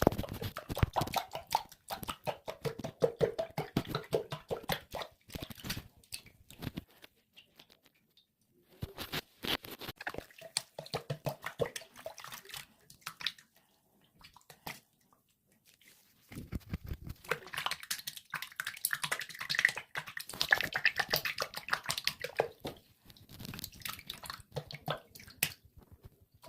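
Liquid soap being worked and squished: dense wet squelching and clicking in bursts, with two pauses of about two seconds each.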